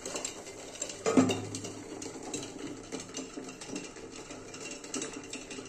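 A steel lid is set back onto a steel pot of boiling water, with one metallic clank about a second in. Then the water bubbles steadily under the lid, with faint clinks of the steel bowls and lid.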